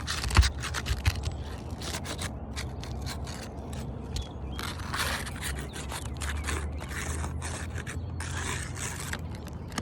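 Metal paint scraper scraping and working under asphalt roof shingles in short, irregular strokes to loosen them, with a sharp knock about half a second in.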